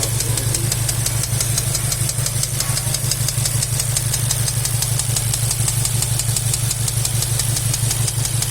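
VW Golf 7 R's 2.0 TSI four-cylinder engine idling steadily with a fast, even clacking several times a second: the engine noise whose cause is being diagnosed.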